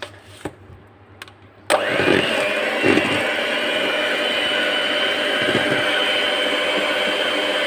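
Electric hand mixer switched on about 1.7 s in after a few handling clicks, then running steadily with a constant whine as its beaters whip chilled cream in a bowl.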